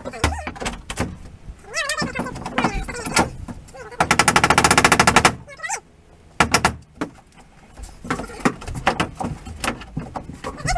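Cordless drill-driver running in a rapid, evenly pulsed hammering burst for about a second and a half, about four seconds in, with scattered knocks and clatter from the work around it.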